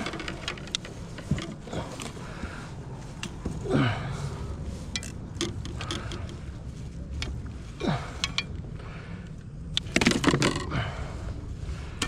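Fishing reel being cranked, quick mechanical clicking over a low rumble, with a few short voice-like sounds in between.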